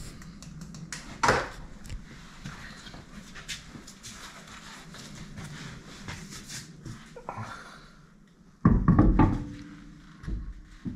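A car alloy wheel is handled and lifted onto the rear hub. There is a knock about a second in, light clicks and rustling, then a heavy thud near the end as the wheel meets the hub and brake disc.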